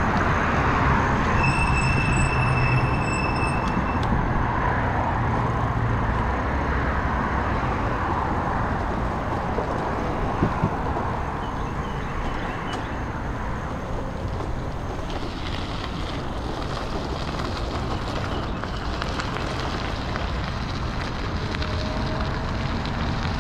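Steady rush of wind and tyre noise from a Heybike e-bike being ridden. A thin high whine lasts a couple of seconds near the start.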